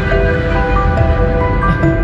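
Background music of slow, held notes stepping from one pitch to the next, over a steady low rumble.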